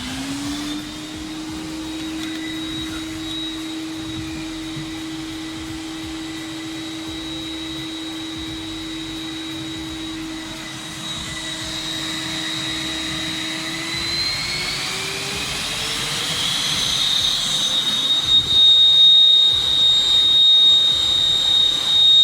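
Vitals Master PS 3014SPsw construction vacuum's motor running in blow mode at minimum power with a steady whine, after spinning up at the start. About two-thirds of the way in, the motor speeds up and the whine rises in pitch and grows louder.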